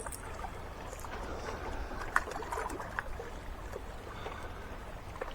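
Steady low outdoor background noise with a few faint scattered clicks and taps.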